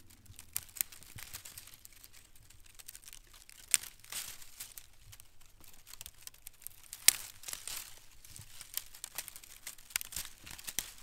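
Dry, dead juniper twigs being broken off a bush and gathered by hand, giving an irregular run of crackles and small snaps. Two sharper snaps stand out, about four and seven seconds in.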